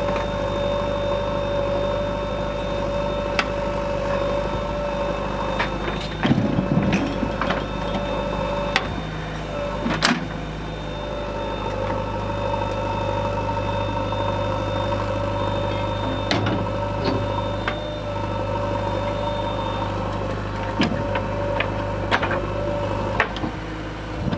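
JCB 3DX backhoe loader's diesel engine running steadily under hydraulic load while the backhoe arm digs earth. Sharp metal clanks and knocks from the bucket and arm come now and then, the loudest about six to seven seconds and ten seconds in.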